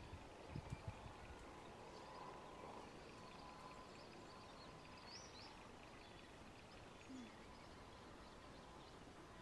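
Near silence: faint outdoor background hiss, with a few soft low bumps about half a second in and a single faint high chirp about five seconds in.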